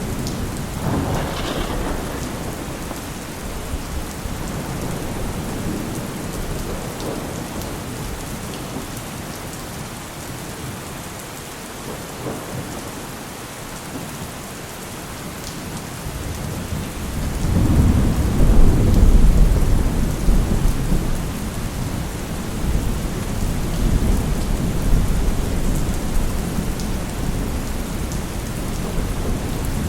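Heavy, steady rain with rolling thunder. A rumble fades in the first seconds, and a louder, deep thunder roll swells a little past halfway, then slowly dies away.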